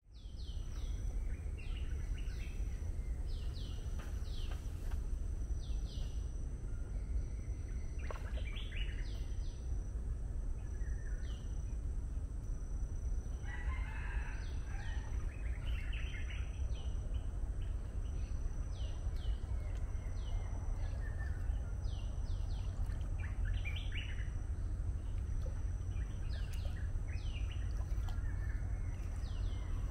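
Wild birds calling: many short, high notes that slide downward, repeated throughout, with a busier patch of calls about halfway through, over a steady low rumble.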